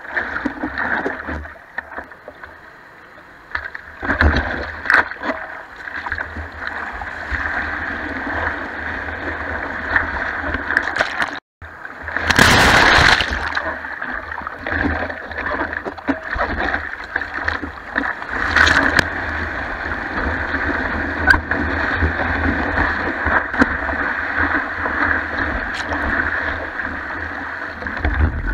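Whitewater rushing and splashing against a surfboard, picked up close to the water at the board's nose. The sound breaks off for a moment near the middle, and the loudest surge of water follows.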